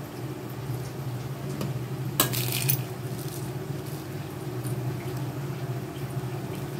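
Fried masal vadai being crumbled by hand into a bowl of sundal: soft crumbling with small clicks, and a brief clink about two seconds in, over a steady low hum.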